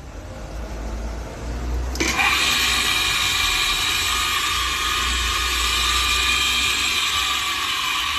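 Metvisa industrial blender's motor switched on about two seconds in, then running at a steady high speed with a loud whine.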